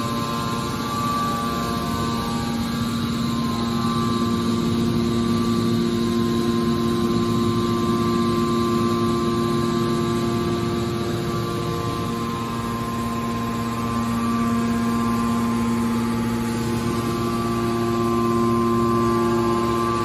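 Hydraulic power unit of a scrap car baler running idle: the electric motor and hydraulic pump make a steady hum with a whine of several held tones, with no pressing stroke.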